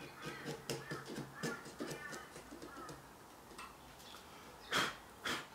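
A narrow chisel paring waste out of a small joint in hoop pine kumiko strips, heard as a quick run of light scrapes and clicks for about the first three seconds. Two louder brief sounds follow near the end.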